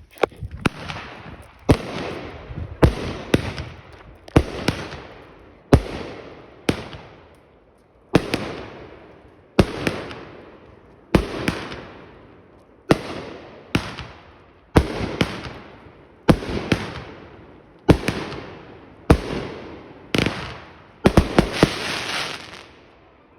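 Multi-shot consumer firework cake firing shot after shot, a sharp bang about every second, each one trailing off. A quick burst of several shots near the end closes the volley.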